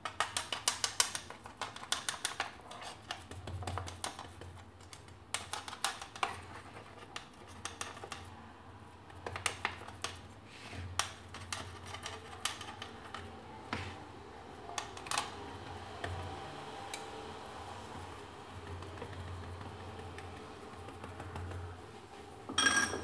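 A metal spoon clicks and scrapes against a frying pan as semolina dough is pressed into shape around the pan's edges. A quick run of small clicks comes first, then scattered knocks and scrapes.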